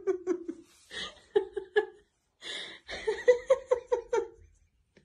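A person laughing in runs of quick, high-pitched 'ha' bursts, with a sharp breath drawn in twice between the runs.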